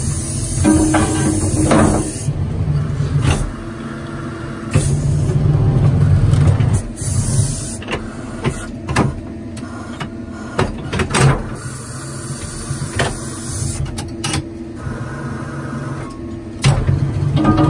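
Roddie Pit Shot hydraulic directional drill running: a steady low machine drone that swells louder for a second or two at a time as the drill works the rod, with scattered sharp knocks from the steel drill rod and carriage.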